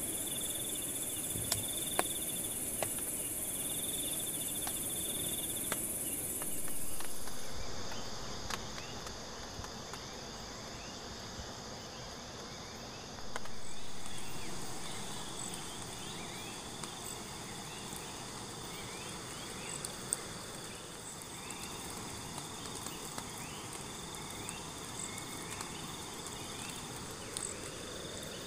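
A chorus of crickets and other insects trilling steadily, with a few light clicks early on. About seven seconds in, the highest trill stops and a different set of insect trills takes over at lower pitches. The whole chorus swells and fades at about thirteen seconds.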